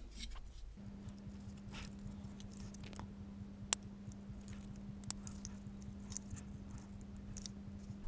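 Small clicks and scrapes of a plastic remote-control battery compartment being handled while a metal battery contact is pushed into place, with one sharp click near the middle and a smaller one about a second later. A faint steady hum starts about a second in.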